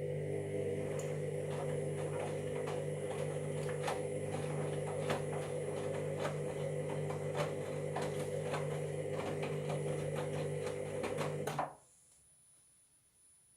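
Washing machine motor turning the drum in one direction during the wash tumble: a steady hum with many rapid ticks and knocks over it, stopping suddenly a little before the end. It comes from a machine with a drum and motor fault.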